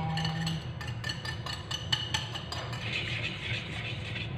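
A metal wire whisk clicking and clinking against a ceramic mixing bowl in a quick run of taps as batter is poured and scraped out, then a swishing sound of whisking cake batter in a plastic bowl near the end.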